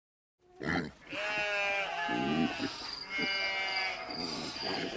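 Sheep bleating, several wavering calls overlapping, starting about half a second in. A high, pulsing tone joins partway through.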